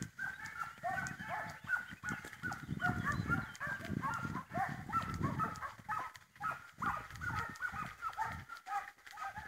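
A pack of Serbian hounds baying in chorus: many short, overlapping yelping calls one after another, the voice the hounds give while running a hare's scent. A low rustling rumble runs underneath.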